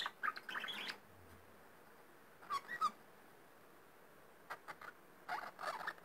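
Grey budgerigar making short bursts of chirps and chatter, four times over a few seconds.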